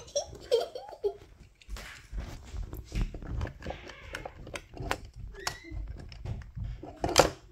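Die-cast toy car handled against a hard plastic carrying case: a run of small clicks and knocks over a low handling rumble as the car is pushed into a slot, with one louder sharp sound near the end. A child's voice is heard briefly near the start.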